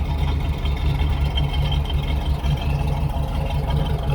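1969 Chevrolet Camaro SS's L48 350 small-block V8 idling with a steady, low, pulsing rumble.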